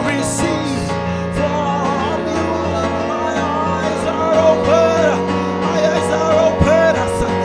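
A man singing a slow worship song into a handheld microphone over steady instrumental accompaniment with held chords.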